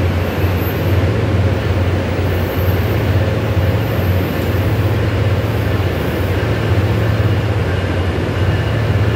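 NJ Transit commuter train at a station platform: a steady, loud low hum and rumble of rail equipment, without a break.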